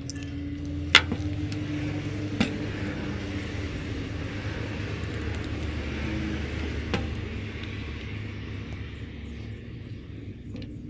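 Three sharp metal clicks, the first the loudest, as a steel rod and a drill bit are worked into the key hole of a keyed drill chuck. Under them runs a steady low rumble like a motor vehicle running.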